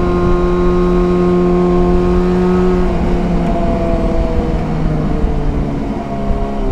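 Yamaha FZ6 Fazer's inline-four engine running at steady revs under way, with low wind and road rush underneath. About three seconds in the revs drop and settle on a lower steady note.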